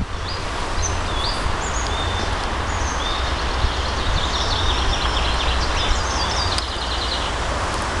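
Small songbirds singing in a pine and birch wood: scattered high whistled notes, some sliding up or down, then a fast repeated trill from about halfway through. Underneath runs a steady rustle of leaves in the wind with a low rumble.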